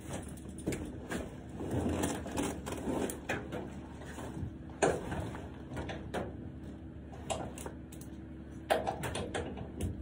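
A hay bag being hung up inside a metal horse trailer: rustling of hay and fabric with scattered knocks and clatter against the trailer, the sharpest knocks about five seconds in and again near the end.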